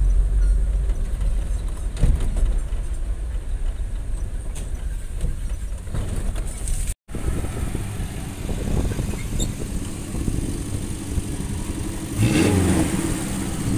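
A motor vehicle's engine running on the move, with a heavy low rumble in the first half. The sound cuts out for an instant about seven seconds in, and the engine revs up briefly near the end.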